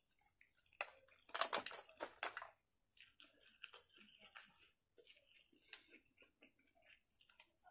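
A person chewing and eating food close to the microphone, with a louder run of sharp wet clicks from about one to two and a half seconds in, then fainter scattered mouth clicks.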